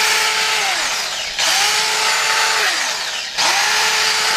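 Cordless drill spinning a small sanding cone against a metal motorcycle wheel hub: a steady motor whine with a grinding hiss over it. The pitch sags now and then, and the sound cuts in afresh about every two seconds.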